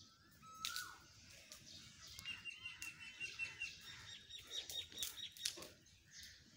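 Small birds chirping: a short falling call about half a second in, then a quick run of high chirps and more high notes in the middle. Scattered clicks and rustles from a hand rubbing a cat's fur close to the microphone.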